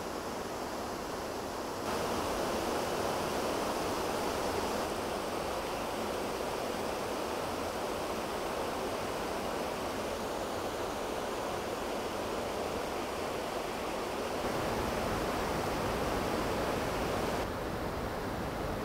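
Steady rushing noise, like running water, that changes level and tone abruptly a few times where the recording is cut.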